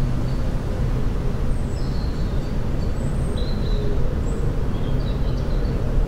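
Steady low rumble of outdoor background noise, with faint, scattered high chirps from small birds.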